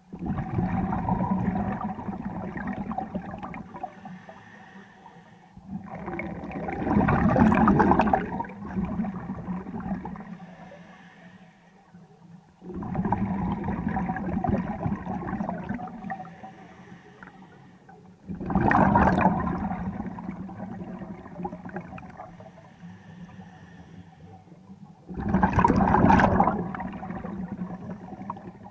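Scuba diver breathing underwater through a regulator: five breaths about six seconds apart, each a sudden hiss and burst of bubbling exhaust that fades over a few seconds.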